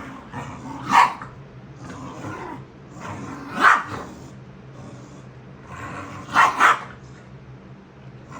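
A dog barking four times: single barks about a second in and near the middle, then two quick barks in a row, with quieter low dog noises in between.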